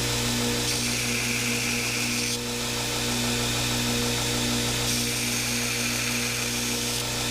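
A 2x72 belt grinder runs with a steady motor hum while a steel knife blank is profiled on the belt. The hiss of grinding sharpens twice, about a second in and again about five seconds in, as the blade is pressed to the belt.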